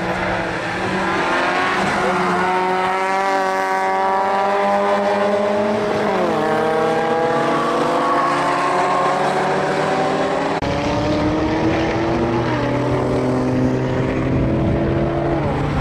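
Car and motorcycle engines accelerating through a corner, their pitch climbing steadily and dropping at upshifts about six seconds in, a little after twelve seconds, and again near the end.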